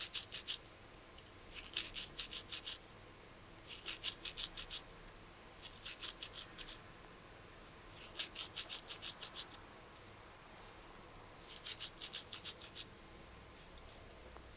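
Dried rosemary being crushed between two palms, the hands rubbing together in short bouts of quick scratchy strokes, about one bout every two seconds.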